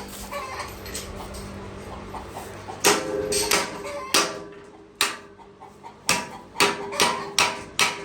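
Metal farm gate being struck over and over, about nine sharp ringing clangs starting about three seconds in, coming faster near the end.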